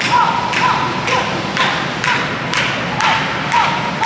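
Rhythmic hand clapping, about two claps a second, cheering on a dog pulling a weighted cart. A steady high tone runs underneath.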